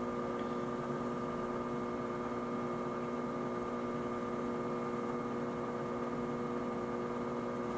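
Steady electrical hum of several steady tones, unchanging throughout: room tone with no other sound.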